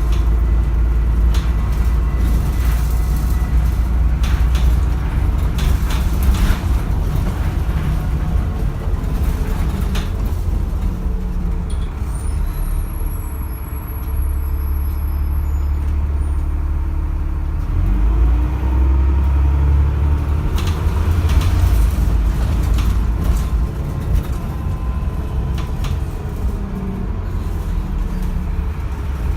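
Inside a moving London double-decker bus: the diesel engine rumbles low and loud under rattles and knocks from the body. The engine note dips briefly past the middle, then rises again as the bus picks up speed.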